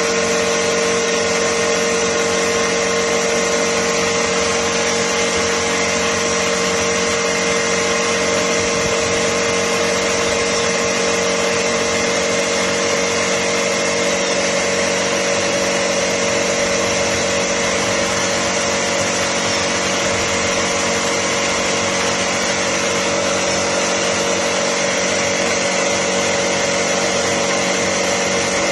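Steady, unchanging machine drone with a constant hum, like a motor running continuously.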